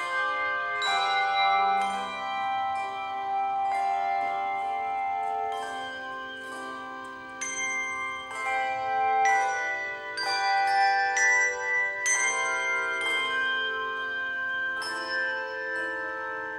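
A handbell choir playing a medley: chords of handbells struck every second or so, each left to ring on under the next.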